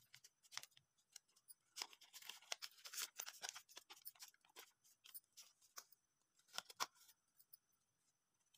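A sheet of paper crinkling and crackling in the hands as it is folded and pulled open into a paper boat: faint, with a dense run of crackles a couple of seconds in and a few more near the end.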